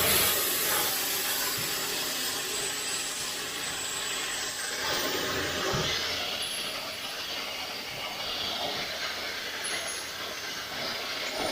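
Pressure washer spraying water onto a driveway: a steady hiss of spray.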